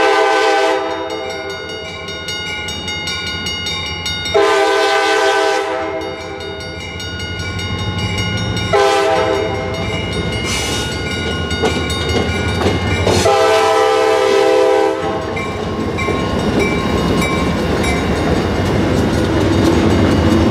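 Horn of a freight train led by an EMD SD40-2 diesel locomotive, sounding four blasts of several notes at once. The third blast is short and the last is the longest, the pattern of a grade-crossing warning. Under and after the blasts, the diesel engine and the wheels on the rails run steadily and grow a little louder near the end.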